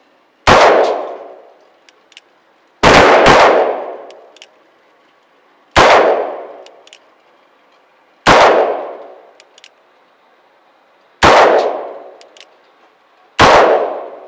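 Seven gunshots fired two to three seconds apart, two of them in quick succession about three seconds in, each followed by about a second of ringing echo.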